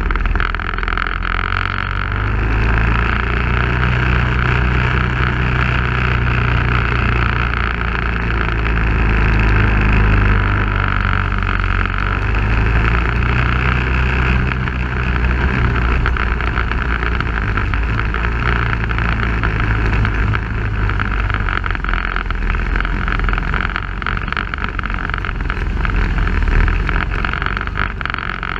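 Off-road vehicle's engine running along a rough dirt trail, its pitch stepping up and down with throttle, under steady wind and terrain noise. Frequent small knocks and jolts from the rocky ground, thicker near the end.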